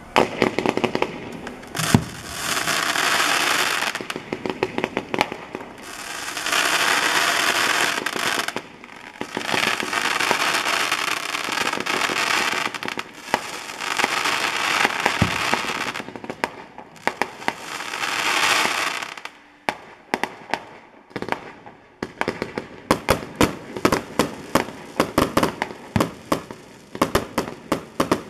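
A rapid volley of aerial fireworks (a barrage of shells fired one after another). Sharp bangs are mixed with long stretches of dense crackling. The last few seconds bring a fast run of separate pops and bangs.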